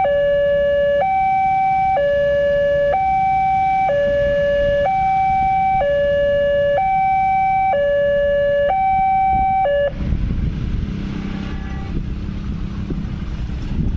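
Railway level-crossing electronic warning alarm sounding a high and a low tone in turn, about a second each, then cutting off suddenly about ten seconds in. Motorcycle and car engines and wind noise follow as traffic crosses the tracks.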